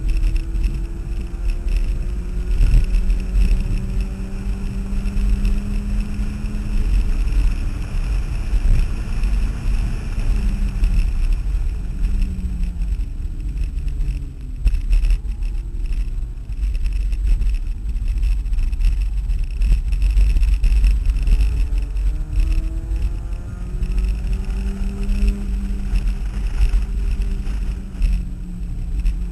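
Turbocharged Mazda Miata's four-cylinder engine heard from inside the cabin, revs climbing slowly through long pulls, easing off in the middle, then climbing again near the end. Steady low road and wind rumble underneath.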